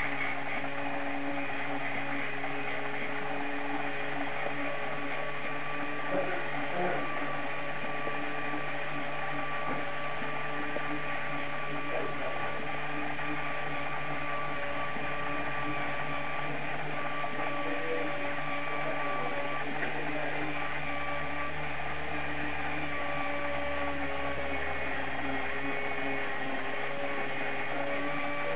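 Small electric drive motor and gearing of a motorized Peco N scale turntable running steadily, a constant whining hum, with a few faint clicks.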